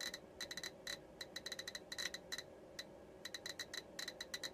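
GQ GMC-320 Plus Geiger counter clicking at a random, uneven rate, several short beep-clicks a second. Each click is a count of gamma radiation from the depleted uranium on the plate, passing through a 2 mm PETG magnetite shield, at about 725 counts per minute.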